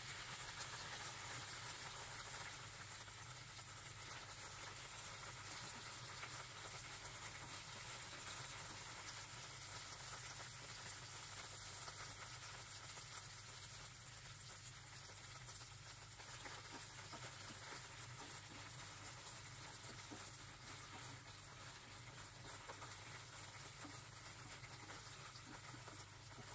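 Cut okra sizzling in oil in a nonstick frying pan over medium heat: a faint, steady frying hiss.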